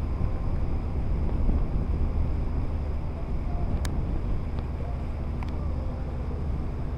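Boat engine running with a steady low rumble while under way on the river, with wind buffeting the microphone.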